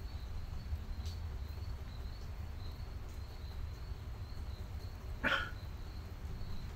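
Night ambience: a dog barks once in the distance about five seconds in, over a steady low rumble and a faint high insect trill.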